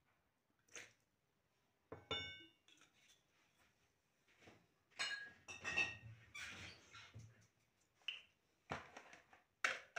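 Kitchen handling noises: a sharp clink that rings briefly about two seconds in, then scattered knocks, clatter and rustling as dishes and utensils are moved about.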